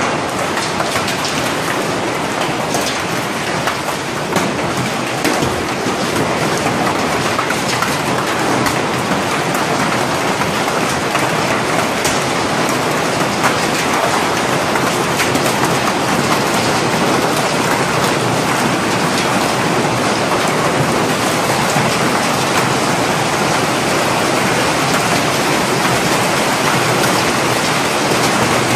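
Hailstorm with heavy rain: hailstones and rain pelting hard pavement, a loud steady hiss dotted with many sharp clicks of individual stones striking.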